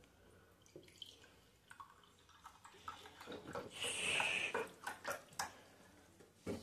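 Orange juice poured from a carton into a glass tumbler: a splashing pour lasting about a second and a half, starting a little past halfway. Light taps and knocks follow, the sharpest near the end.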